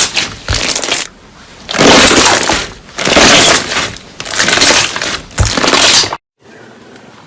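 Crunchy slime being pressed and squeezed in the hands, crackling and popping in about five loud bursts. About six seconds in it cuts off suddenly to a quiet hum.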